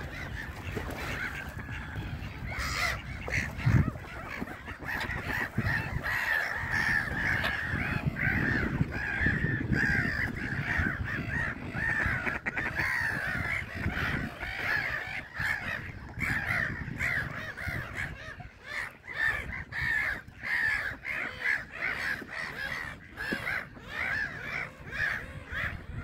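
A flock of gulls calling without a break: many short, harsh calls overlapping one another, over a low rumble.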